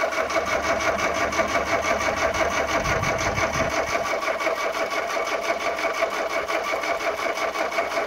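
ZAZ Slavuta's four-cylinder carburettor engine being cranked on the starter motor: a steady, fast, even whirring that does not catch and fire. The plug leads have just been rearranged because a wrong firing order is suspected.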